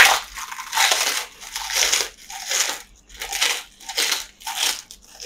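Crunchy food being bitten and chewed close to the microphone: a loud crunch at the start, then a steady run of crunches about every two-thirds of a second.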